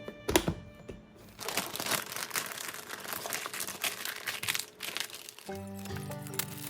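Packaging crinkling and rustling in dense, crackly handling from about a second and a half in, after a few light clicks. Background music with steady notes comes in near the end.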